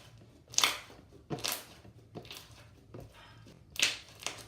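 Homemade slime being squeezed and worked in the hands: a series of short, irregular squelches, about six in a few seconds.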